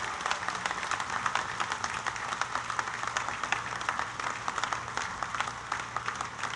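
Crowd applauding: many hands clapping at once in a dense, even patter.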